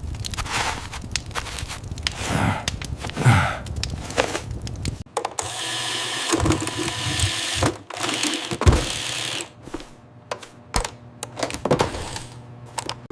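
Animated-cartoon sound effects: a busy run of clicks, knocks and short whooshes, with a stretch of dense hiss about five seconds in that stops near the ten-second mark.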